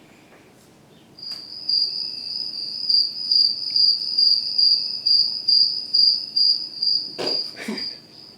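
Recorded cricket chirping: a steady high-pitched trill that starts about a second in and pulses evenly, roughly two to three times a second.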